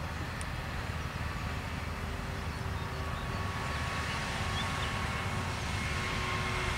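Airport fire crash tender's heavy diesel engine running as the truck drives by, a steady low rumble that grows a little louder as it comes closer.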